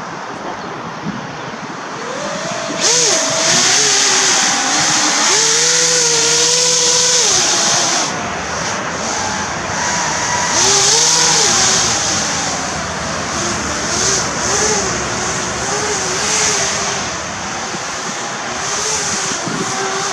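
Propeller motors of a battery-powered RC hovercraft whirring loudly, rising about three seconds in. The whine glides up and down as the throttle changes, and the air rushes as it moves across the asphalt.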